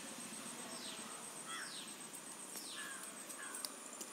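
A bird calling over and over, about once a second, each call a quick falling whistle. The calls are faint, over a steady high-pitched tone and light outdoor hiss.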